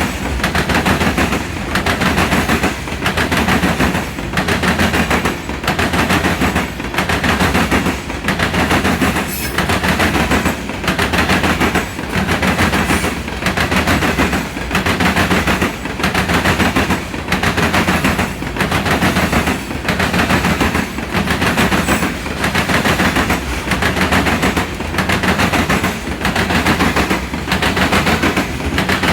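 Freight cars of a CSX lime train rolling past, wheels clattering over the rail joints in a steady, repeating rhythm. The pattern comes round a little under every second and a half.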